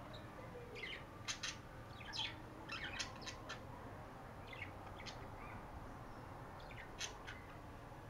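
Pet budgerigars chirping: short, high chirps in scattered runs, busiest between about one and three and a half seconds in, with another few near the end.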